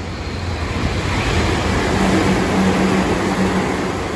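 A Meitetsu train passing through the station at speed without stopping: a loud rushing rumble that builds over the first second or so and stays at its peak, with a low steady hum running through the middle.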